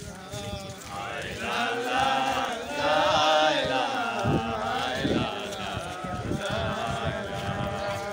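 A group of men chanting together in a drawn-out devotional chant while walking, the voices swelling and loudest a couple of seconds in.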